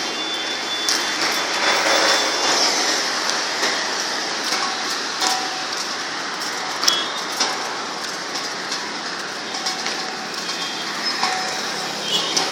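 Steady road and wind noise of a moving vehicle, with scattered rattles and clicks.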